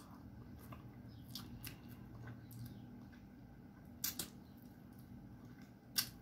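Close mouth sounds of a person eating fish head by hand: soft chewing and sucking with a few sharp lip-smacking clicks, two about four seconds in and one near the end, over a faint steady low hum.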